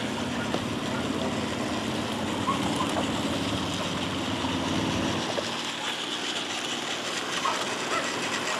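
Marvel Iron Man Plarail battery toy train running round a small loop of plastic track, under a steady rushing outdoor noise.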